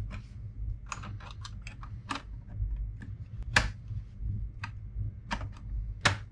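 Small irregular clicks and taps of a metal tool prying at the plastic case of a 1994 Epson Action Note laptop, with sharper clicks about three and a half seconds in and again near the end.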